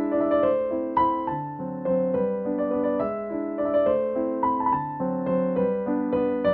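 Background piano music: a gentle melody of single notes over held chords.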